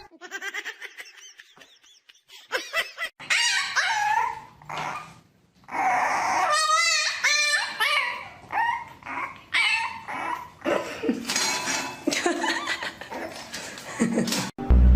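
A dog whining and yipping, with some barks, in a string of short, pitch-bending calls.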